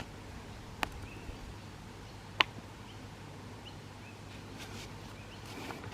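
Two sharp clicks of a mini-golf putter and ball, about a second and a half apart, the second louder, over a quiet outdoor background with a few faint short bird chirps.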